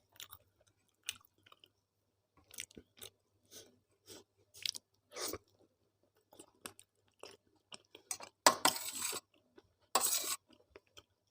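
A person chewing soft home-cooked food (tawa roti with daal and potato-fenugreek sabzi) close to the microphone, with short wet mouth clicks and smacks, and two louder, longer noisy eating sounds about eight and a half and ten seconds in.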